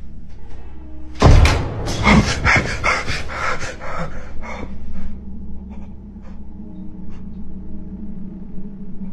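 A person coughing hard in a rapid string of coughs, starting about a second in and lasting about three seconds, over a steady low hum.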